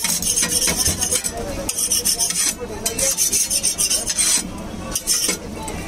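A metal spoon scraping and spreading a thick masala filling over bread slices on a steel counter, in about three long rasping strokes that stop a little after the middle.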